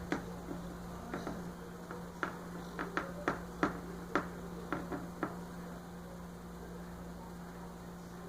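About a dozen short clicks and taps over the first five seconds from handling the pieces of a Play-Doh cupcake playset, over a steady electrical hum.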